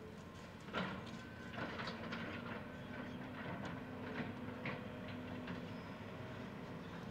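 John Deere excavators working a demolition debris pile: diesel engines running steadily under irregular clanks and crashes of rebar and broken concrete being grabbed and shifted, the loudest crash about a second in.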